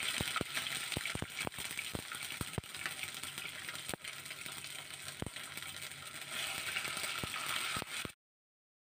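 Ginger paste frying in hot mustard oil with whole spices: a steady sizzle with frequent sharp pops and crackles, cutting off suddenly near the end.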